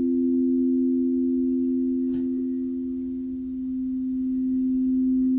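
Singing bowls holding two steady, pure low tones that dip slightly about three seconds in and swell back. There is a faint tick about two seconds in.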